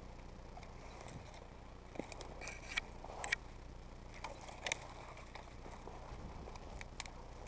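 Dry reed stalks and brush crackling and snapping as someone moves through them on foot, with irregular sharp snaps starting about two seconds in, over a low steady hum.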